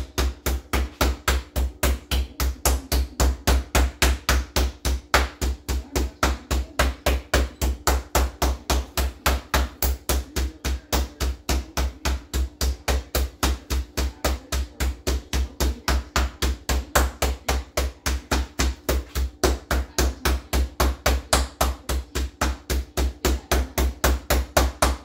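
Boneless, skinless chicken breast pounded flat under plastic wrap on a cutting board, with a steady run of deep thudding blows at about four a second.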